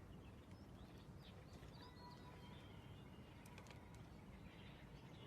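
Near silence: faint room tone with a few faint high chirps and light clicks.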